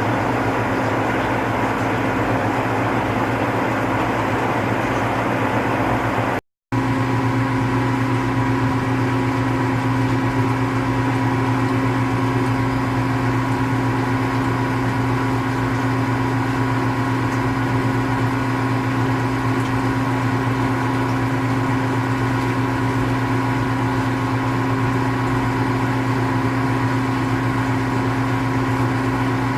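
Steady machine hum with a low, even drone and a fainter higher tone, broken by a short cut about six seconds in.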